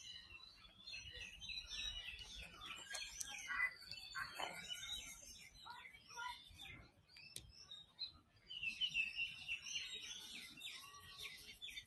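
Faint, busy chirping and twittering of many small birds, in thick runs during the first few seconds and again near the end.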